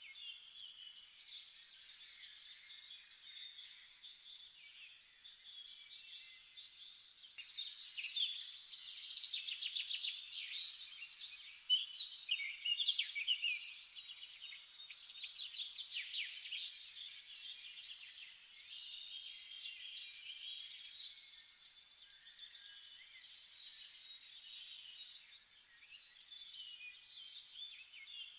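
Small birds chirping and singing over one another, with quick trills and fast runs of repeated notes that are busiest and loudest in the middle stretch.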